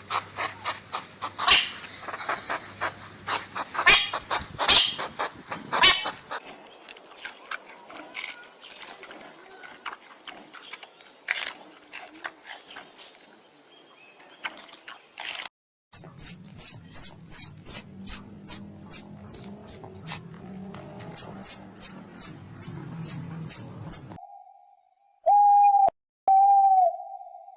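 A run of separate bird-call recordings: dense chirping and clicking, then softer scattered chirps, then a fast series of high chirps that each fall in pitch, and near the end two short, steady hooting notes.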